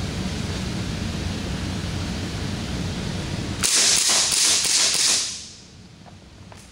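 Sig Sauer P226 X-Five full-metal blowback CO2 BB pistol fired semi-automatically in a quick string of about five sharp shots, a little past halfway through, over steady room noise.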